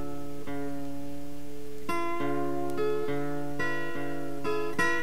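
Background music: acoustic guitar picking notes and chords that ring and fade.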